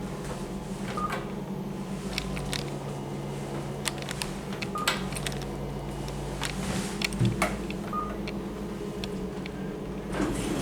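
KONE elevator push buttons being pressed, giving a few short beeps a few seconds apart, with scattered clicks over a steady low hum.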